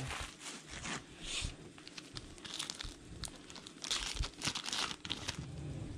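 Plastic shrink wrap crinkling and tearing in several bursts as a sealed trading card box is unwrapped by hand.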